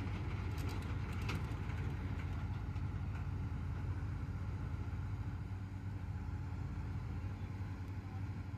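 Heavy diesel engine idling steadily, a low even hum, with a few light clicks about a second in.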